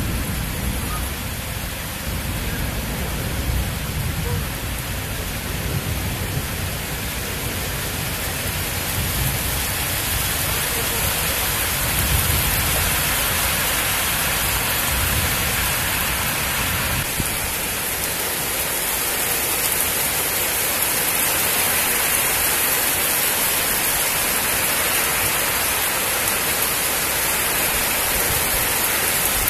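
Steady rain falling in a thunderstorm, with low rumbles of distant thunder in the first few seconds and again about twelve seconds in.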